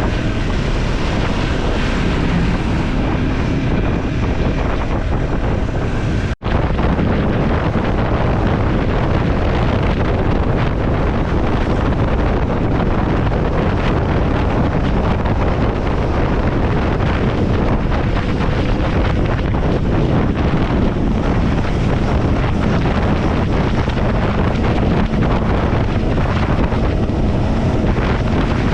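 Triumph Scrambler 400 X's single-cylinder engine running steadily at road speed, largely buried under wind rushing over the microphone. The sound cuts out for an instant about six seconds in.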